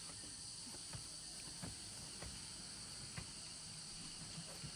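Faint, steady, high-pitched insect chorus, with a few faint clicks.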